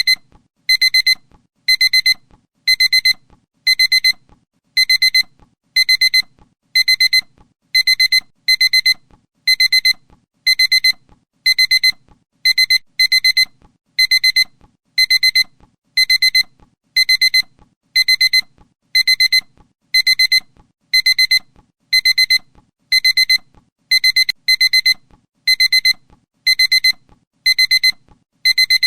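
Electronic alarm beeping: short clusters of rapid, high-pitched beeps, about one cluster a second, repeating steadily and evenly.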